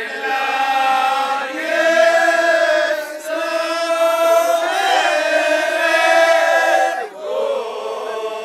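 Male Ahwach chorus chanting in unison without accompaniment, drawing out long held notes in two phrases, the first breaking off about three seconds in and the second ending about seven seconds in; a quieter single voice follows near the end.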